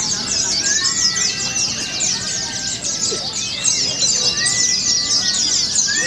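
Many caged white-eyes (pleci) singing at once: a dense, unbroken chorus of rapid, overlapping high chirps and trills, with a few longer whistled notes mixed in.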